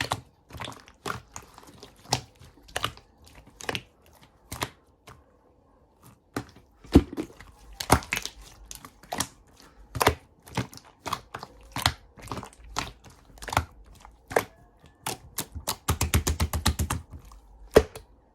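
A series of sharp clicks and taps from something being handled close up, with a brief pause partway through and a fast run of rapid taps near the end.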